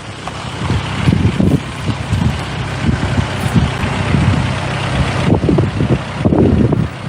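A motor vehicle's engine running close by, with wind buffeting the microphone.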